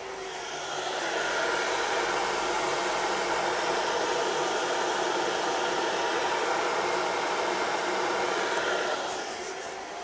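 Electric kettle heating water, a steady loud rushing hiss, over the quieter steady run of a canister vacuum cleaner. The kettle swells up over the first second and fades about a second before the end.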